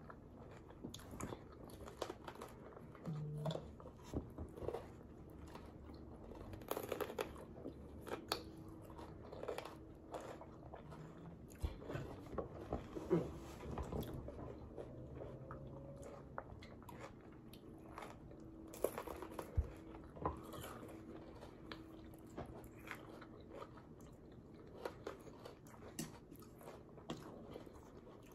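Chewing and biting into raw jalapeño peppers stuffed with cream cheese and Blue Heat Takis rolled tortilla chips, with many short crisp crunches scattered throughout.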